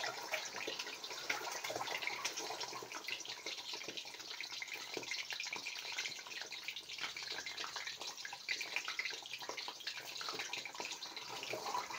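Whole boiled eggs frying in hot oil in a large iron kadhai: the oil sizzles and crackles steadily around them.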